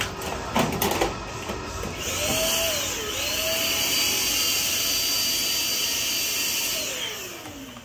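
A couple of knocks, then a small electric motor switches on about two seconds in. It runs steadily with a high whine over a hiss and winds down near the end.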